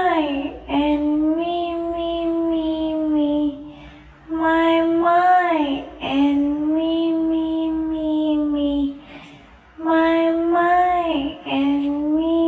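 A high voice singing the same short phrase over and over, about three times. Each phrase opens with a quick rise and fall in pitch and ends on a long held note.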